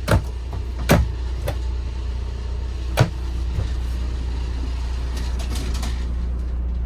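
Cabinet doors knocking and clicking as they are opened and shut, four sharp knocks in the first three seconds and a few faint clicks later, over a steady low running hum.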